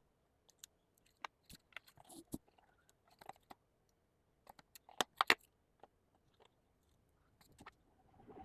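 Scattered light clicks and rattles of small hard objects being handled, with a quick cluster of louder clicks about five seconds in.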